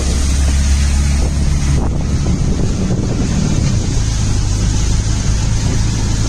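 Vehicle engines running as traffic wades through a flooded road, with water churning and wind buffeting the microphone. The low engine hum shifts about two seconds in.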